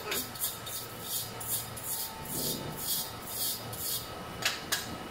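A hand brush scrubbing back and forth on an aluminium frame tube, about two or three rasping strokes a second, to clean the joint before welding. Near the end come two sharp clicks.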